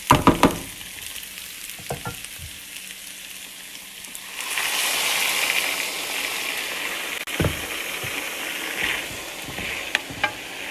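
Basmati rice sizzling as it sautés in butter and oil in a pot, with a few sharp knocks of a spoon against the pot at the start. About four seconds in, hot water is poured in and the sizzle turns into a louder, steady hiss.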